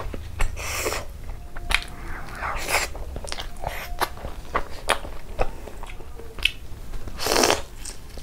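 Close-miked eating sounds: a person biting and chewing soft Indian sweets, with wet mouth clicks and smacks. A longer, louder rush of noise comes about seven seconds in.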